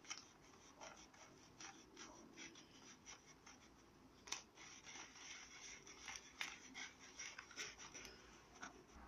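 Faint, irregular scraping and light clicking of a small plastic spoon stirring a thick candy paste in a plastic tray, with one sharper click about four seconds in.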